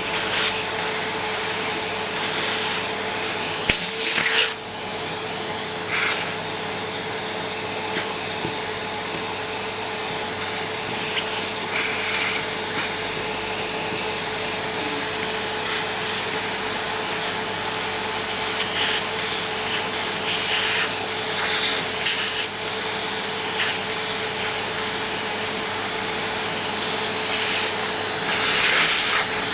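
Ariete Handy Force vacuum cleaner running steadily with a constant motor whine. Short rubbing and scraping sounds come and go over it, the loudest about four seconds in and again near the end.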